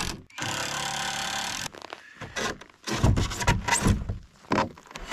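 Cordless drill running steadily as it drives a screw through an aluminum angle bracket into plywood, stopping sharply a little under two seconds in. A run of louder knocks and clunks follows as the plywood ramp is handled.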